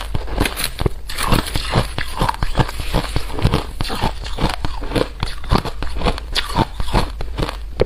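Crunchy food being bitten and chewed, a quick run of crisp crunches several times a second.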